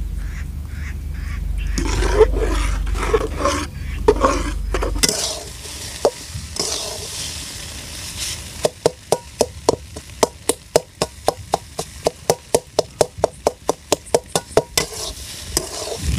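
Metal spatula stirring and scraping scrambled egg in an aluminium pan, with frying sizzle under it and a low rumble in the first five seconds. From about halfway in comes a quick, even run of sharp taps, about five a second, as the spatula chops the egg against the pan.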